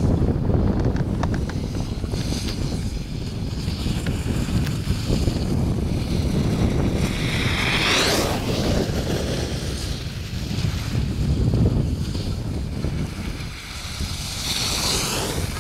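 Wind buffeting the microphone of a camera carried downhill by a skier, a steady low rumble. Over it, the scraping hiss of skis carving on hard-packed groomed snow swells twice, about halfway through and near the end.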